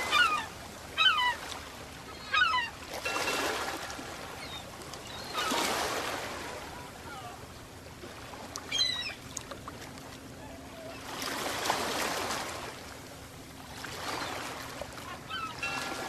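Choppy waves washing and splashing against a concrete seawall and pier pilings, surging every few seconds. Short chirping bird calls come over the water, several in the first few seconds, once near the middle and again near the end.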